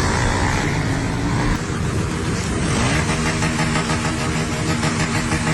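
Motorcycle engines running and revving, with one rising rev about halfway through and then a steady engine note.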